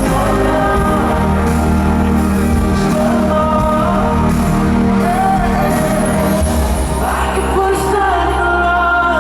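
Live pop song played by a band with a male lead vocal, sustained bass notes underneath and the sung line rising and falling.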